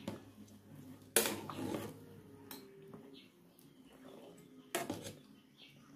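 A spoon stirring soup in a metal cooking pot, knocking against the pot twice: once about a second in and once near the end.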